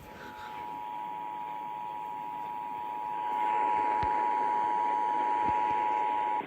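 Emergency Alert System two-tone attention signal (853 and 960 Hz sounded together), a steady harsh dual tone received over AM radio with static hiss. It gets louder about three seconds in and cuts off sharply near the end, ahead of the spoken test message.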